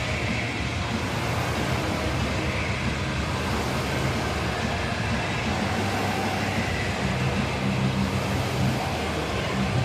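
Air rowing machine's fan flywheel whirring steadily under continuous rowing strokes, with a low hum underneath.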